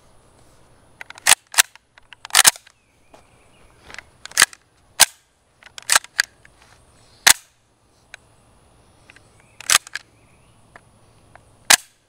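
Heckler & Koch SP5K's cocking handle and roller-delayed bolt being worked by hand: about ten sharp metallic clacks at irregular intervals. The bolt is racked back, locked open and slammed home (the HK slap), which the top Picatinny rail makes awkward.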